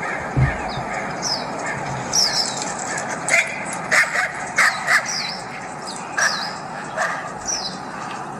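Coyote barking and yipping: a run of short, sharp calls, most of them bunched around the middle.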